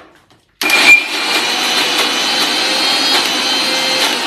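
Kitchen mixer grinder (mixie) running with its small jar, grinding homemade paneer into a paste. It starts abruptly about half a second in with a brief peak, then runs steadily with a high whine.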